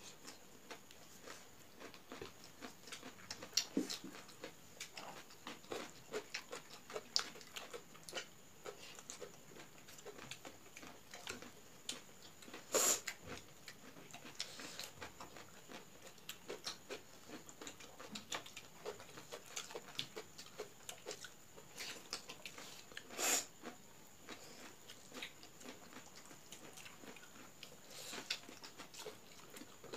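Mukbang eating sounds: chewing and lip smacking on egg curry and rice eaten by hand, with fingers mixing rice on steel plates. A steady run of small wet clicks, with two louder clicks, one near the middle and one about three quarters through.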